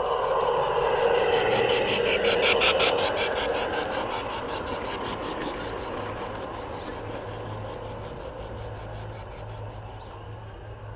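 LGB G-scale model train running past close by: the motor's whine and the wheels rolling on brass track, loudest early on with a quick run of clicks from the wheels passing over rail joints about two seconds in, then fading steadily as the wagons roll away, with a low hum underneath from about halfway.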